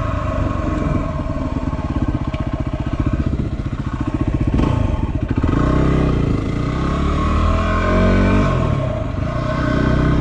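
2016 Yamaha WR250R's single-cylinder four-stroke engine running at low town speed. Its revs drop briefly about four to five seconds in, then rise again as the bike pulls away.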